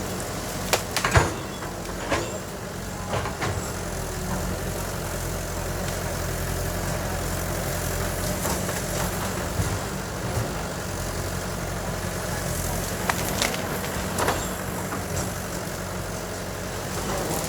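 Heavy diesel engine of earthmoving machinery running steadily, with sharp knocks and clanks at intervals, the loudest about a second in.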